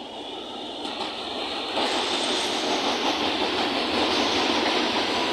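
CPTM series 7500 electric train pulling into the station, growing louder as it nears and jumping in loudness about two seconds in. Its running noise is the drone that earns this unit the nickname 'Roncador' (snorer).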